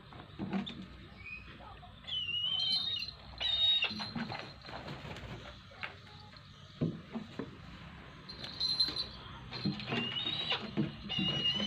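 Wing flaps of a tethered brahminy kite flapping off a gloved fist, in several flurries, along with short, high, wavering bird calls a few times.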